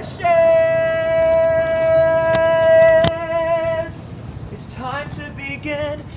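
A singer's voice holding one long, steady, high note for about three and a half seconds, then a few short wavering notes near the end.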